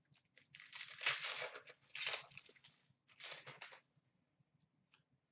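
Foil trading-card pack wrapper being torn open and crinkled by hand, in several crackly bursts that stop about four seconds in, followed by a faint click.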